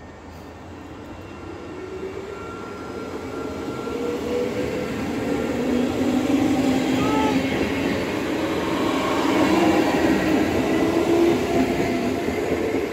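NS SGMm Sprinter electric multiple unit approaching and running past close by. The sound builds over about six seconds, stays loud while the carriages go by, and drops off near the end.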